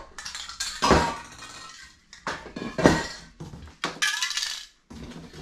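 Aerosol spray cans clinking and knocking against each other as they are handled and lifted out of a cardboard box: several sharp metallic clinks, the loudest about three seconds in.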